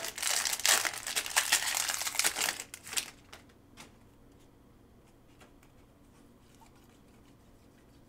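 Plastic wrapper of a Mosaic football card pack crinkling and tearing as it is ripped open and pulled off the cards, for about three seconds. After that it goes nearly quiet, with a couple of faint clicks from the cards being handled.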